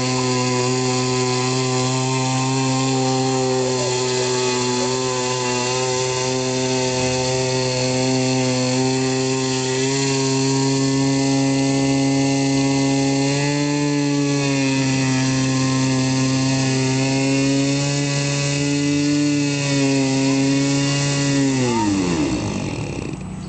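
Radio-controlled model airboat's motor and propeller running at a steady pitch, dropping slightly a few times, then winding down sharply to a stop near the end.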